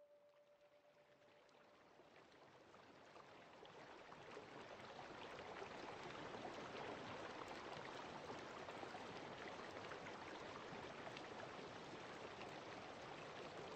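Faint rain-like hiss with a fine crackle of drops, swelling slowly louder over the first several seconds and then holding steady, in a break in the ambient music.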